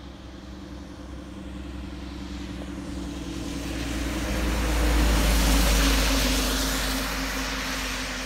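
A box truck drives past on a wet road: its engine hum and a tyre hiss swell to a peak about five seconds in, then fade as it moves away.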